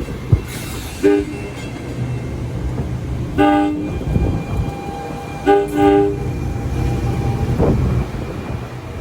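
Passenger train's multi-note air horn sounding a short blast followed by two longer blasts, over the steady rumble of the train running on the rails.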